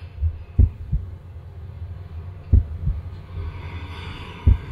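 Slow heartbeat sound effect: three deep double thumps, lub-dub, about two seconds apart, over a low steady hum.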